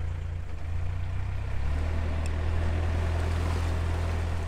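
Narrowboat's inboard diesel engine running steadily at low cruising revs, a low even drone whose note shifts slightly about a second and a half in.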